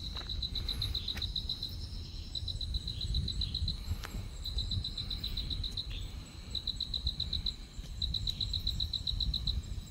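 Insects chirping: high-pitched trains of rapid pulses, each about a second long, repeating with short gaps, over a steady low rumble.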